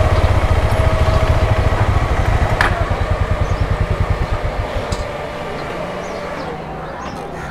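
KTM 390 Adventure's single-cylinder engine running at low revs as the bike creeps along, its exhaust beats separating into a steady, even thump. About five seconds in the engine noise drops away to a quieter background hum.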